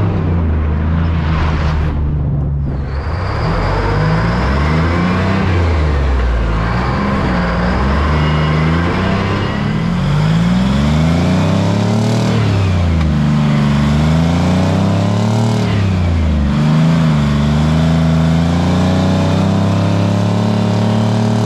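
Cab-over semi truck's diesel engine pulling through its gears: its pitch climbs with each gear and falls back at each shift, several times over.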